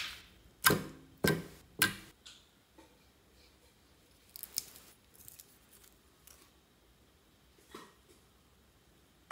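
Clear slime squelching and popping as fingers press into it in a glass dish: three sharp pops within the first two seconds. Later, a few light clicks as a glass nail-polish bottle is handled and opened.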